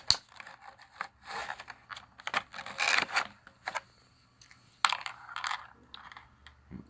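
Sharp clicks, rattles and scrapes of a flimsy plastic tool tray and small metal tool pieces being handled as a small knife is worked out of its slot.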